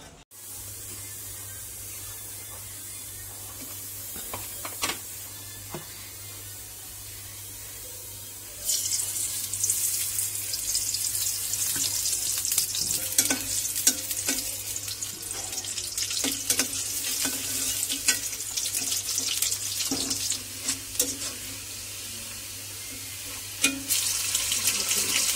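Garlic cloves and sliced onion sizzling in hot oil in a steel karahi over a gas burner, with a metal spoon scraping and clicking against the pan as it is stirred. The sizzling starts suddenly about a third of the way in; before that there is only a low steady hum and a few clicks.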